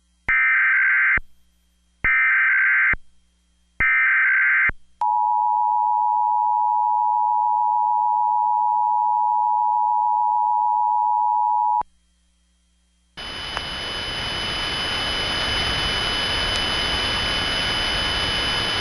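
Emergency Alert System test tones. First come three one-second bursts of SAME header data tones with short gaps between them. Then the two-tone EAS attention signal sounds as a steady chord for about seven seconds and cuts off abruptly. After a short silence a steady loud hiss with faint high whistling tones sets in, swelling slightly at first.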